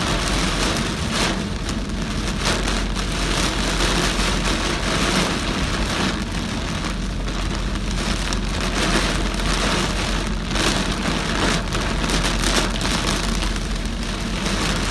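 Very heavy rain pelting a moving car: a dense, steady hiss with a low steady rumble of the car and road underneath.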